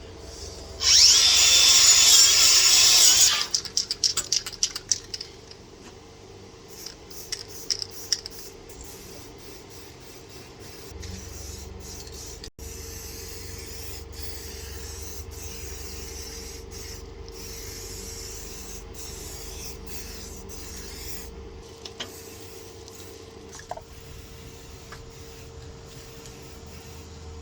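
Wire brush scrubbing metal, loud for about two seconds near the start. Scattered short scrapes and clicks follow, then a quieter steady background with a faint constant hum.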